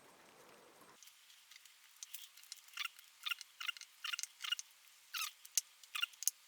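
Light, irregular clicks and taps, about fifteen over a few seconds, from small hydraulic valve lifters being handled and pressed while they are checked for sticking.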